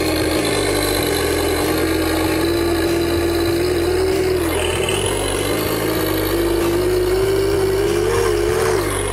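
Simulated engine sound from the Tamiya M1025 Hummer RC truck's onboard sound system, running steadily and rising in pitch twice as the throttle is opened, about three seconds in and again near the end.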